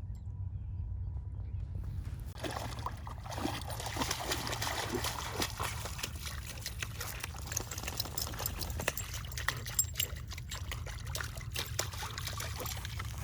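A dog wading and splashing in shallow pond water. Sloshing and trickling start about two seconds in and carry on as a busy run of small splashes, over a steady low rumble.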